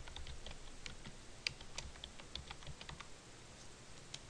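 Computer keyboard typing: a run of irregular keystrokes over the first three seconds, then a single click near the end.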